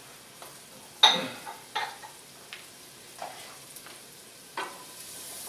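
Wooden spoon knocking against a stainless steel pot while stirring chopped onion frying in oil: a sharp knock about a second in, then several lighter ones. A steady sizzle swells near the end.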